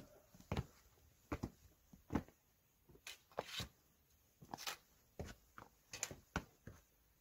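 Hikers' footsteps and trekking-pole taps on sandstone and loose rock: irregular short, sharp steps and clicks, one or two a second.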